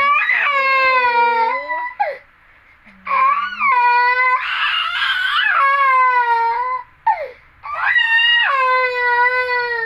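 A toddler crying in three long wails with short catches of breath between, the middle wail turning harsher partway through, while its head is being massaged.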